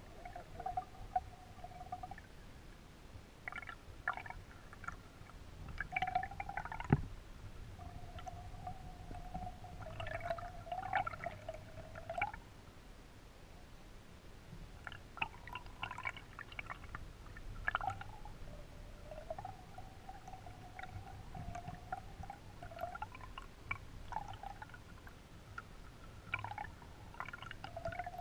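Underwater sound picked up by a GoPro in its waterproof housing in a spring-fed stream: a steady low rumble of water. Over it come wavering tones that start and stop every few seconds, and there is a single knock about seven seconds in.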